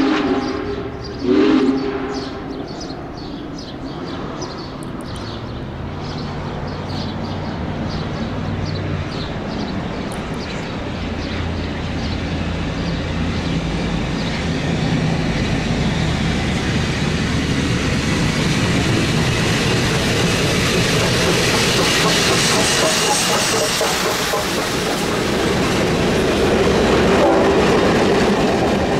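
Union Pacific Big Boy 4014, a 4-8-8-4 articulated steam locomotive, sounding its multi-tone whistle, which ends in a short, loud blast about a second in. The rumble of the working locomotive and train then grows steadily louder as it approaches and passes, with rail clatter and hiss peaking near the end.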